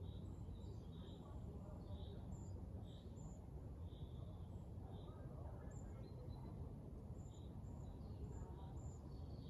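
Wind rumbling on the microphone, with small birds chirping repeatedly, short high chirps about once a second.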